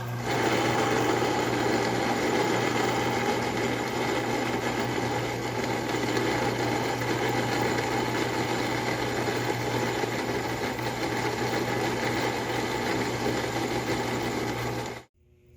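Metal lathe running steadily under power, a constant motor and belt-drive hum with machining noise over it, cutting off suddenly near the end.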